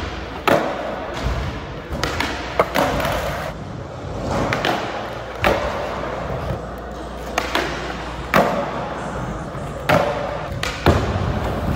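Skateboard wheels rolling on a hard park surface, with repeated sharp clacks and thuds of the board against the ramps and ledges every second or two.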